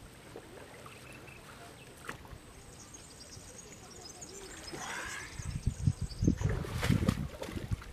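A carp retainer sling holding a mirror carp is hauled up out of the lake margin. Water splashes and pours off the mesh in heavy, irregular sloshes through the last three seconds, after a quiet start.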